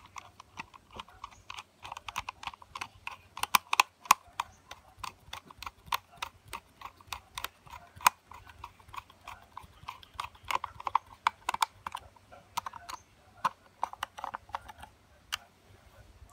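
Screwdriver turning the fixing screws of a wall socket's faceplate: a run of irregular small clicks and ticks, some in quick clusters, as the tip works in the screw heads.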